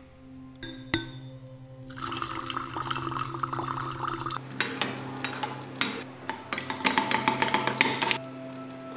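Liquid pouring and swirling in glass. From about four and a half seconds in comes a dense run of sharp glassy clicks and clinks, which cuts off about a second before the end. A low, steady music drone runs underneath.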